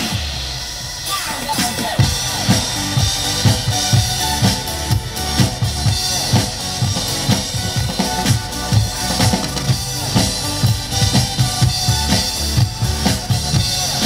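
Dance music played through PA speakers, with an electronic drum kit beat of kick drum and snare coming in strongly about two seconds in and keeping a steady rhythm.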